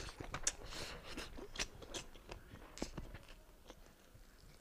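A person chewing a mouthful of beef and rice eaten by hand, with wet smacking mouth sounds in an irregular run of clicks that thins out toward the end.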